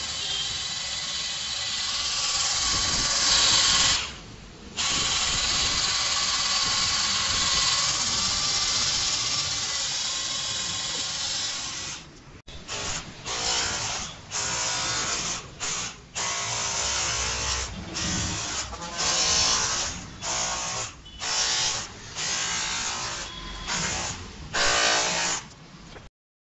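MAF PRO 20V cordless hammer drill running under load with its bit in the ground. It runs steadily for about twelve seconds, with one brief stop about four seconds in, then the trigger is pulsed in a dozen or so short bursts before it stops just before the end.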